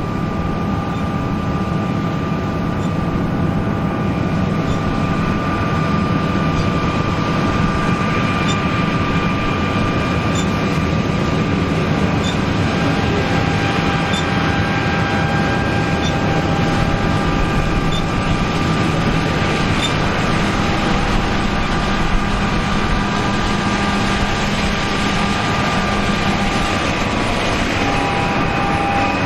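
Machinery running steadily: a low rumble under several steady, high whining tones, which shift slightly in pitch about midway and again near the end.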